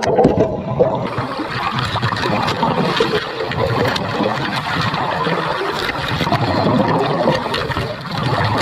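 Water churning and bubbling, with scattered small knocks and clicks.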